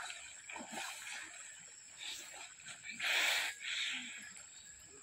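Water splashing and sloshing as a swimming bull and a man swimming beside it churn the river, with a louder splash about three seconds in and a smaller one just after.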